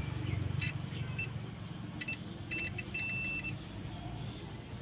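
Digital multimeter beeping as its probes touch contacts on a phone's circuit board: several short high beeps and then one longer beep, the meter's signal that the probes have found a low-resistance path. A steady low hum runs underneath.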